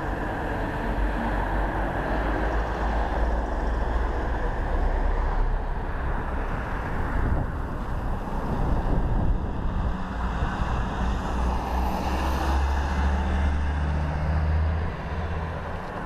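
Outdoor street ambience with a steady low rumble that swells over the second half and eases off shortly before the end.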